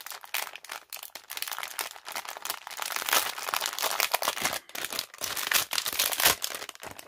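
Clear plastic packaging bags of satin ribbon bows crinkling as hands squeeze and shift them: a dense run of irregular crackles.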